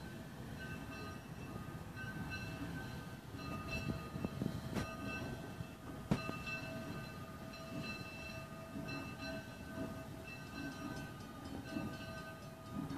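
Steam locomotive's bell ringing in steady strokes about once a second as the engine approaches slowly, over a low rumble of the locomotive. Two sharp knocks come about five and six seconds in.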